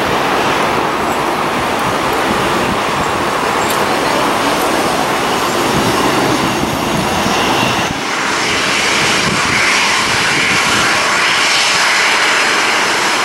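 Aircraft engine noise at an airport: a steady rushing sound from a Short SD3-60 twin turboprop landing and rolling out. About eight seconds in, the sound changes to a thinner, higher jet-engine whine from a taxiing Boeing 737.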